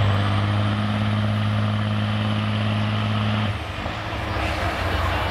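Semi truck's diesel engine held at a steady high rev, with a faint high turbo whistle over it. About three and a half seconds in the engine is let off and the whistle falls away, leaving a rougher, quieter rumble.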